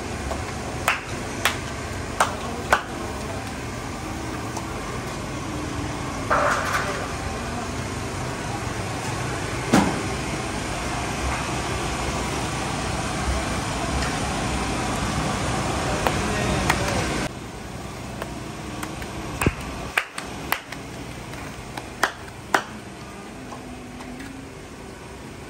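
Busy street noise with traffic, broken by scattered sharp clanks and knocks. The background drops suddenly in level about two-thirds of the way through.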